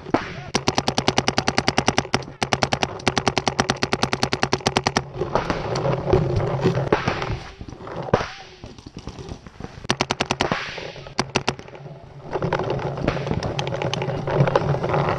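Electronic paintball marker (Planet Eclipse GTEK) firing in rapid strings of about ten shots a second: one long string for the first five seconds, then a shorter burst about ten seconds in.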